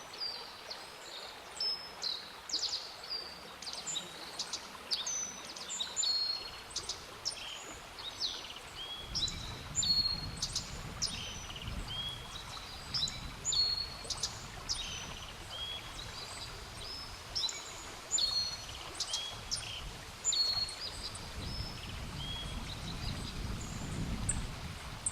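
Black-faced bunting singing: short phrases of quick, high, chirping notes repeated every second or two.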